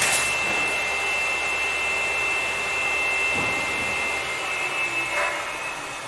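An electric power tool's motor running with a steady high-pitched whine over a hiss, fading out near the end.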